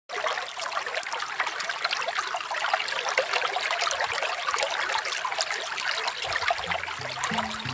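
Small waterfall splashing steadily, a dense rush of falling water. Soft low music notes come in near the end.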